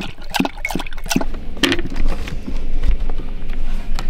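A black Labrador lapping water from a ceramic bowl, about three or four quick laps a second, which stop after about a second. A few scattered clicks follow.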